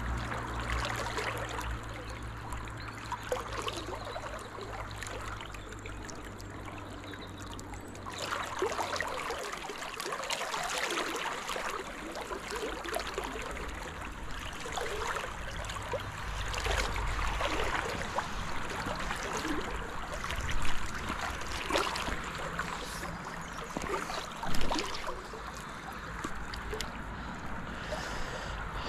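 River water flowing and trickling close by, a steady rippling rush that grows fuller after about eight seconds. Twice in the second half a brief louder sound stands out.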